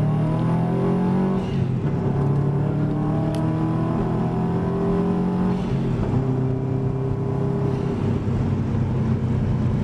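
Turbocharged flat-four engine of a 2003 Subaru WRX accelerating through the gears, heard from inside the cabin: the engine note climbs in pitch and falls back at each of about three gear changes.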